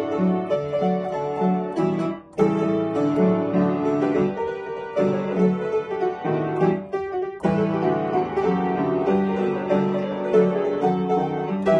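Upright piano played solo: a continuous run of notes over a repeating bass pattern, broken by short pauses about two seconds in and around seven seconds.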